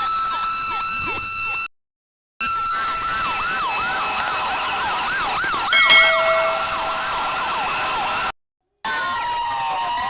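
Electronic toy siren sounding in fast up-and-down wails over a steady high tone, with a brief louder burst of beeping tones about six seconds in. The sound cuts out abruptly twice for under a second, about two seconds in and near the end.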